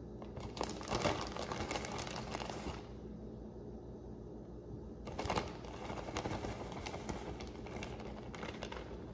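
Plastic zip-top bag crinkling in the hands as frozen grated cheese is pinched and shaken out of it, in two spells of crackly rustling with a quieter lull of about two seconds between them.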